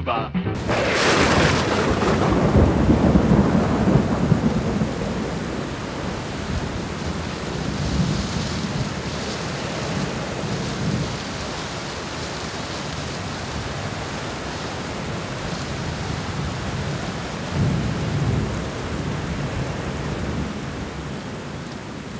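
A thunderclap about half a second in, then steady rain with low rumbling thunder, one rumble swelling near the end.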